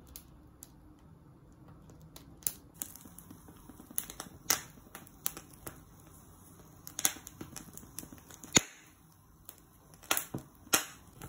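Corn cobs roasting directly over a gas burner flame, the kernels popping with sharp, irregular cracks. There are about a dozen of them, and the loudest comes about three-quarters of the way through.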